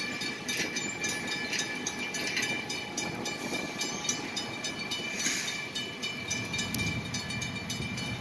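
Freight cars rolling slowly over the rails during yard switching by lease locomotive GMTX 333, with irregular clicks and clanks from the wheels and couplers. A steady high-pitched tone rings over a low rumble that grows toward the end.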